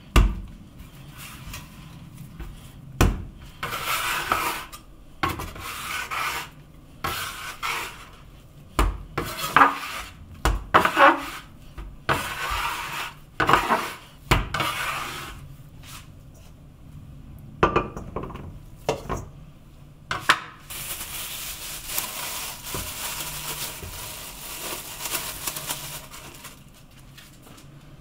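Pizza dough kneaded by hand on a wooden cutting board: irregular thuds and rubbing as it is pushed, folded and pressed down. From about two-thirds of the way in, a steady crinkling hiss of plastic cling film being stretched over the bowl of dough.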